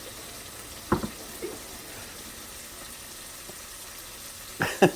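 Beef tips and onions frying in oil in a pan, a steady sizzle, with a single sharp knock about a second in.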